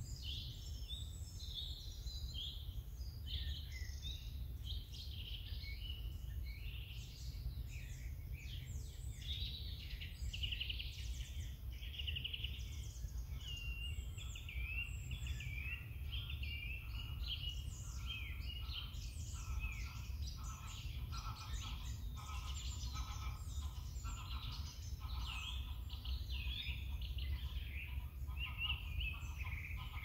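Birdsong: several songbirds chirping and singing continuously in overlapping high phrases, with a lower-pitched series of notes joining about halfway through, over a steady low background rumble.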